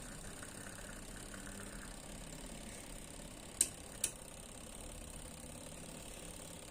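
Washing-machine motor run by a seven-terminal mechanical washer timer, a faint steady hum, with two sharp clicks about half a second apart near the middle.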